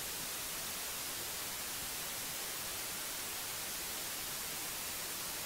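Steady hiss of the recording's own background noise, even throughout, with no other sound.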